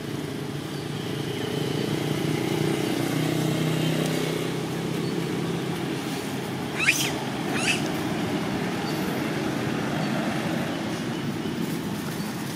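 Steady hum of a motor vehicle's engine, swelling and easing as it passes. Two short, high-pitched squeaks come about seven seconds in, under a second apart.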